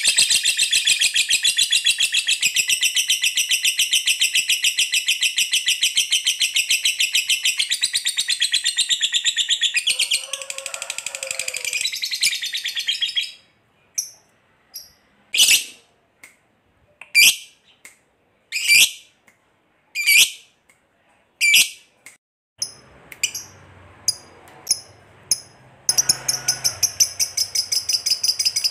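Lovebird giving the long rapid chattering trill that hobbyists call 'ngekek panjang', high-pitched and unbroken for about thirteen seconds. It then breaks into single sharp chirps about every second and a half, and a second rapid trill starts near the end.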